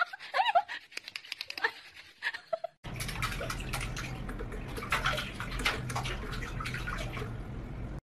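Water splashing and sloshing in a stainless-steel sink as a cat paws at it, over a steady low hum with many small sharp splashes. Before that, in the first second, there are a few short squeaky rising-and-falling mews from a kitten.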